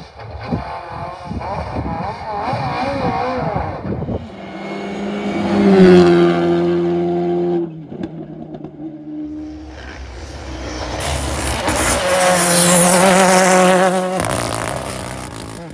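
Rally car engines revving hard as the cars drive the stage, with two cars passing close by, loudest about six seconds in and again about thirteen seconds in. The sound changes abruptly between takes.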